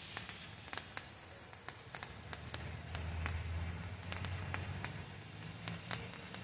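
Brothers Fireworks Crowning Glory handheld fountain burning: a steady hiss with frequent sharp crackles and pops from the spraying sparks. A low rumble swells underneath about halfway through.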